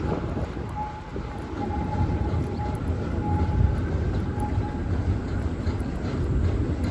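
Steady low rumble of city street noise, with a faint thin whine that comes and goes from about one to five seconds in.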